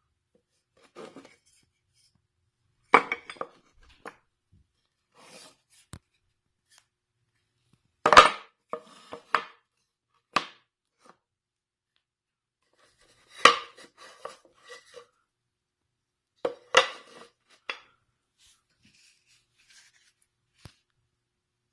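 Handling knocks and clatter of small cut wooden boards and metal clamps being set against a board: several sharp knocks with short rattles after them, separated by quiet pauses.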